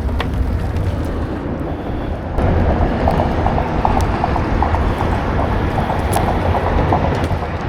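Wind buffeting the microphone outdoors on the water, a steady low rumble that gets louder about two seconds in.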